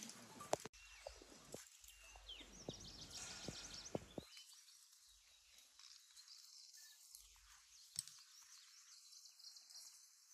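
Faint outdoor ambience with a soft hiss and faint high chirps, broken by a few sharp clicks, the clearest about half a second in and another about eight seconds in.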